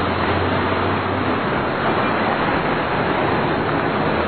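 Street traffic noise: a steady wash of vehicles running past on a city street.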